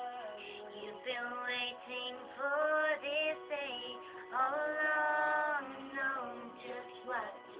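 A young woman singing a slow ballad over a quiet backing track, in short phrases with one long held note about halfway through.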